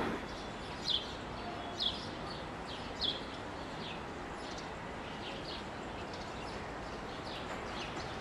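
A small bird chirping: short, falling high chirps about once a second, over a steady background hiss.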